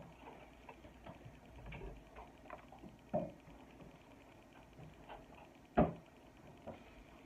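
Faint handling noise: scattered light clicks and taps, with two sharper knocks about three and six seconds in.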